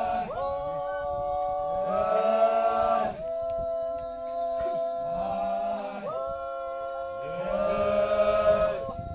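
A group of voices singing or chanting together in long held notes, in three phrases of about three seconds each, each phrase sliding up into its note.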